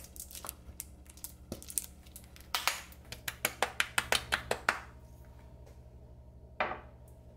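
A quick, even run of about a dozen sharp taps, about five a second, over a steady low hum, with a single louder knock near the end.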